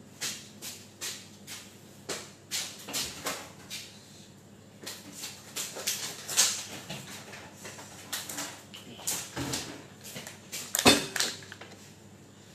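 Scattered short knocks and clatters of things being handled and set down, with a louder cluster about eleven seconds in.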